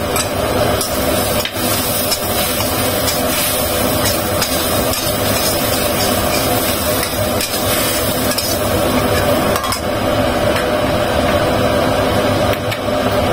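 Metal spatula scraping and knocking against a wok again and again as a thick spice paste with chillies and petai is stirred and pressed around the pan.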